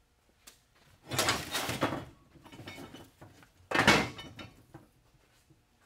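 Steel leaf spring leaves being handled and set down on a workbench: a scraping, clattering burst about a second long, then a shorter, louder knock about four seconds in.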